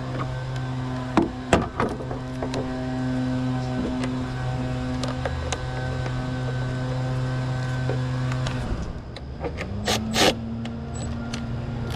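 A steady mechanical hum, with a few sharp clicks and knocks early on and again near the end. About nine seconds in the hum drops away and a higher-pitched steady hum rises in its place.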